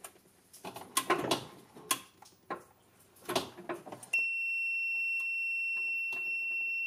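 First, scraping and clunking as a cable is fitted to a golf-cart battery terminal. About four seconds in, the EZGO TXT's backup beeper starts: one loud, steady, high-pitched tone that holds for about three seconds and cuts off. It shows the cart is powered up in reverse and the new forward/reverse switch is working.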